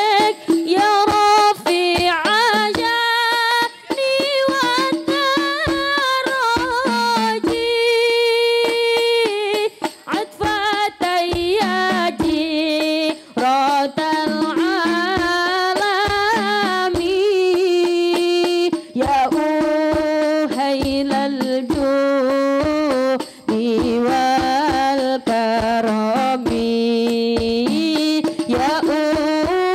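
A woman singing a sholawat, a devotional song praising the Prophet Muhammad, as a flowing melody with long held and sliding notes, over light percussion.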